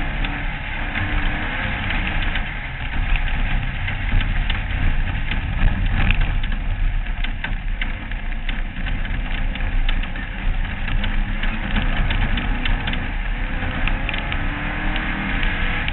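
Off-road race car's engine running under way on a dirt track, heard from an onboard camera with rushing air noise, and frequent sharp ticks and rattles throughout.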